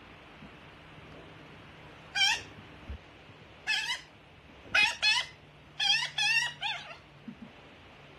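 Black-billed magpie fledgling giving a series of about seven short calls, several in quick pairs, begging as it is hand-fed with forceps.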